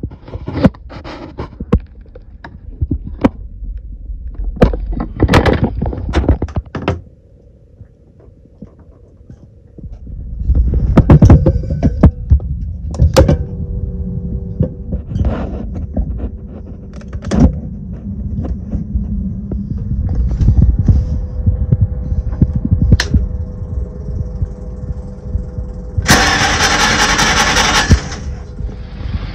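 Knocks and clicks of hose and fittings being handled, then about ten seconds in the boat's engine starts and runs steadily with its cleared cooling-water intake, tested for overheating. A loud burst of noise comes a few seconds before the end.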